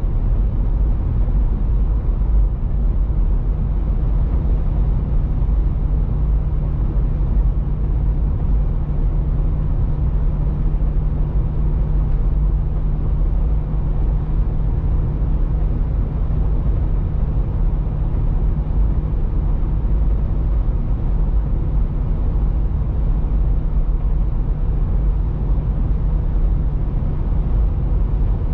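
Steady low rumble of a car driving on the highway, tyre and engine noise heard from inside the cabin.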